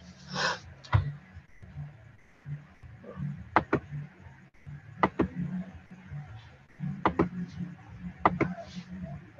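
A handful of sharp computer-mouse clicks, several coming in quick pairs, with a short breathy rush about half a second in.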